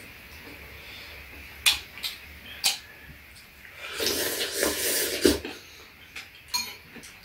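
Spoons and chopsticks clinking against ceramic bowls, a few sharp clinks spread through. About four seconds in comes a slurp of stew broth from a spoon, lasting about a second, which ends with a clink on the bowl.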